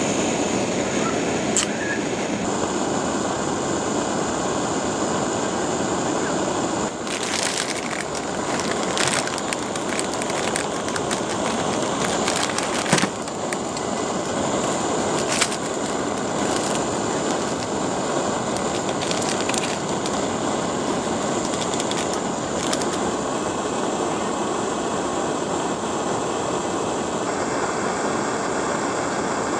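Small screw-on gas canister stove burning at full flame, giving a steady hiss, with a few sharp clicks and ticks scattered through.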